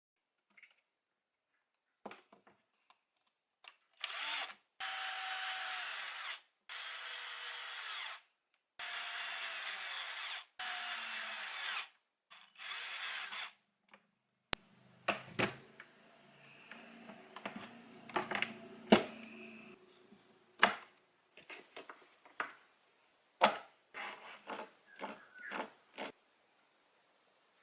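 A small power tool run in five short bursts of one to two seconds each, followed by a series of sharp clicks and knocks.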